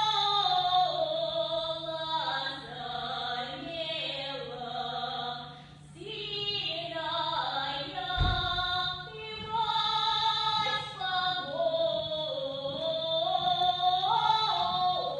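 A solo female voice singing a Russian folk song, holding long notes and sliding between them, with a short break for breath about six seconds in. A brief low thump comes about eight seconds in.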